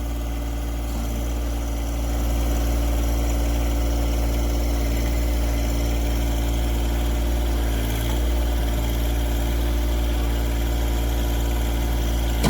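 John Deere 1023E compact tractor's three-cylinder diesel engine running steadily, getting a little louder about two seconds in.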